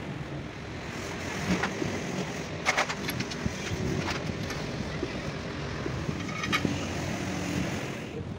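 Steady hum of road traffic, with a few light metal clicks and clinks from hands working on the engine's flywheel housing.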